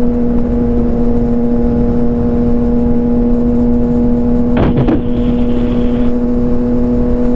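Motorcycle engine running at a steady pitch, under heavy wind and road noise. A brief higher sound cuts in about two-thirds through.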